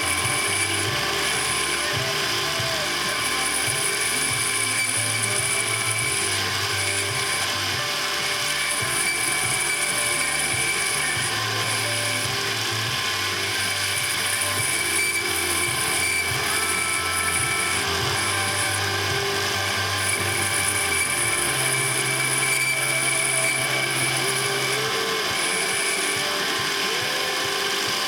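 Machinery running steadily with a continuous rattling, gear-like mechanical sound.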